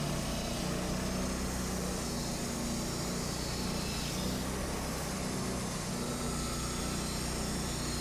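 Wood-Mizer LT40 Wide bandsaw mill running steadily under load as its band blade cuts through a white oak log.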